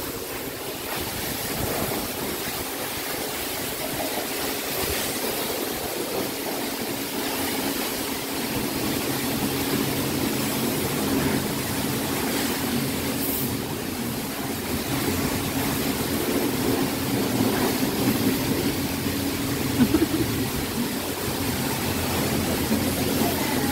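Self-serve car wash high-pressure wand spraying water onto a car: a steady hiss of spray, with a steady low hum underneath.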